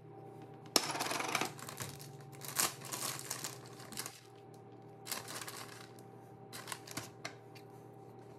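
Food-prep handling noises: a spoon clinks against a bowl and scrapes out ground beef, then a plastic bag of shredded cheese rustles in several short bursts, over a steady low hum.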